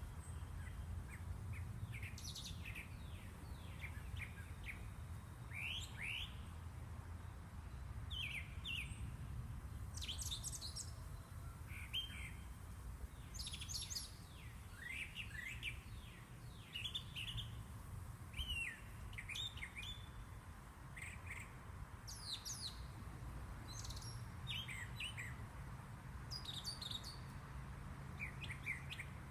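Songbirds chirping, many short quick calls that sweep downward in pitch, overlapping and scattered throughout, over a low steady rumble.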